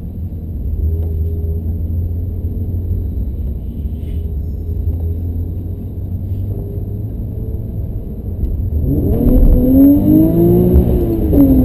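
BMW M5 engine heard from inside the cabin. It runs at a low, steady rumble at first. About nine seconds in it revs up and then back down, louder.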